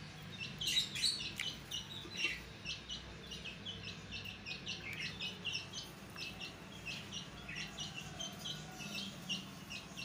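Small aviary birds (budgerigars, lovebirds and chicks) chirping: many short, high chirps following one another at an uneven pace, over a faint low steady hum.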